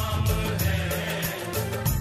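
Background music with a steady beat, about four beats a second, over a strong bass line.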